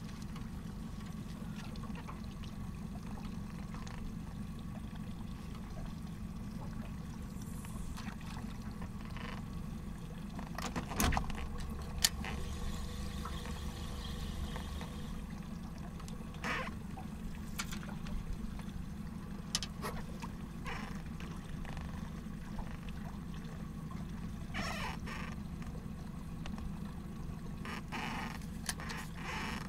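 Water lapping against a small boat's hull over a steady low rumble, with a few scattered clicks and knocks.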